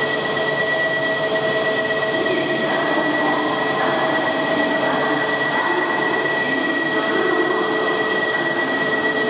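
Shinkansen train at a station platform, its electrical equipment giving a steady high whine and hum over the platform's noise. Muffled, irregular background sounds join in from about two and a half seconds in.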